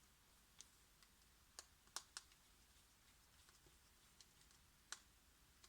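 Faint, sharp clicks and taps of small tools and parts being handled while a smartphone is taken apart and reassembled: about five clearer clicks spread through, the loudest pair about two seconds in, with a few fainter ticks between.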